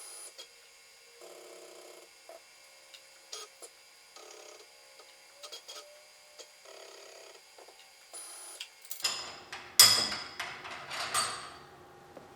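CNC mill's axis motors jogging in short spurts while work zero is being set, a second or less at a time with pauses between. Near the end come a few sharp clicks and clattering knocks of tools or parts being handled.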